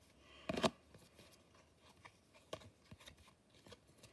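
Paper trading cards being handled: a short rustle about half a second in, then a few light ticks and taps as the cards are moved.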